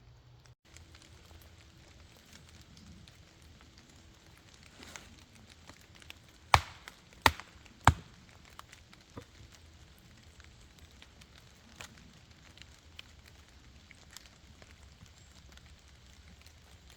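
Wood being chopped: three sharp, loud strikes about two-thirds of a second apart, over the soft crackle of a campfire and light rain patter.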